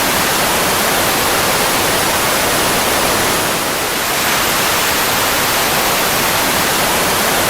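Steady, even roar of a fighter jet engine, a dense rushing noise with a faint high whine above it. It dips slightly for a moment about halfway through.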